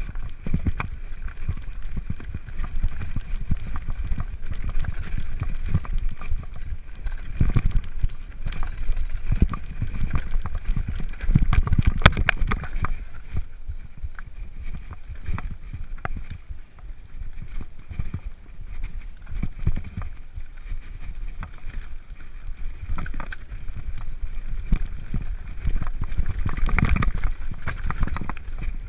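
Mountain bike descending a rough, rocky dirt trail, heard through a camera on the rider: a constant low rumble of wind and tyres, broken by frequent rattles and knocks as the bike hits stones, with one sharp knock about twelve seconds in.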